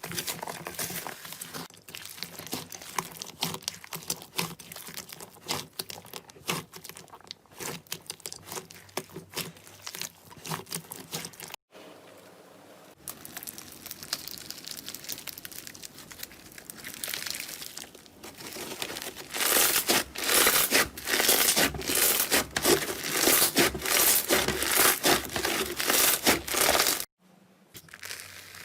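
Slime being squeezed, poked and stretched by hand, making dense crackling, popping and squishing sounds. It comes in three takes split by two short breaks, and the crackling is loudest and busiest in the last long take.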